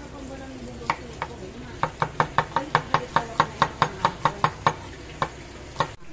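Kitchen knife chopping red onions on a wooden chopping board: a couple of single cuts, then a fast even run of about five knocks a second for about three seconds, then a few slower cuts.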